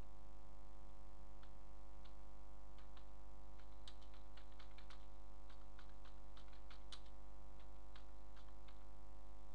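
Computer keyboard keys clicking in irregular keystrokes, densest in the middle and stopping near the end, over a steady electrical hum.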